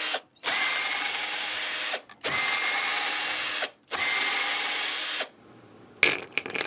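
Cordless drill-driver running in three bursts of about a second and a half each, with a short gap between them, backing out the neck screws of an electric guitar. A few sharp handling clicks follow near the end.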